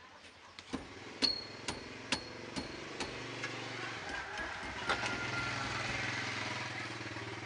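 Sharp metallic clinks, about two a second, as the rear stabiliser bar and its mounting are shaken by hand to check for any remaining tek-tek knocking after shim plates were fitted. A steady engine hum comes in about halfway through.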